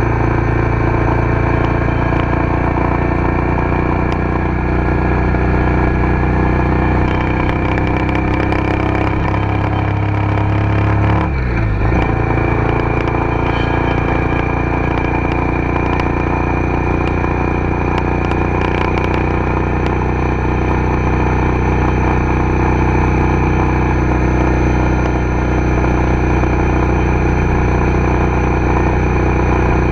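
Car engine and tyre-and-road noise heard from inside the cabin while cruising on a freeway, a steady drone with road rumble. About eleven seconds in the engine pitch drops, then climbs slowly again.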